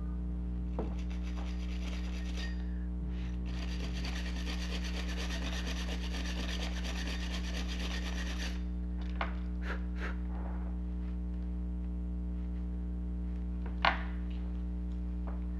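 A wire brush scraping corrosion out of a toy's battery compartment for about six seconds, starting a couple of seconds in, followed by a few small clicks and taps of handling, over a steady low hum.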